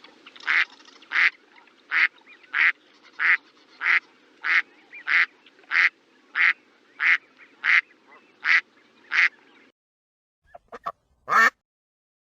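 A duck quacking in a steady, even series, about three quacks every two seconds over a low steady background, stopping about ten seconds in. After a short pause come two short faint calls and one loud one.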